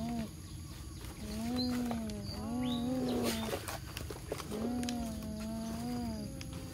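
A child's voice humming long, drawn-out tones that rise and fall, each about a second long, over and over. Light clicks of plastic toy trucks and a scrape of dirt about three seconds in.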